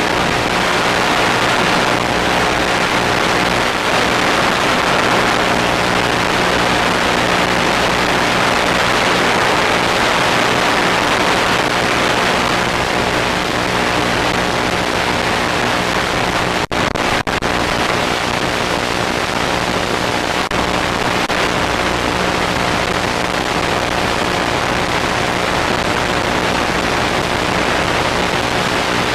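Steady loud hiss of static with a faint low hum, the empty audio channel of an analog FPV video link as recorded by the monitor's built-in DVR. It drops out very briefly three times about seventeen seconds in.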